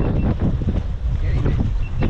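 Wind buffeting the microphone aboard an open boat on the ocean, a steady heavy rumble. A few short, evenly spaced high beeps come near the start and again near the end.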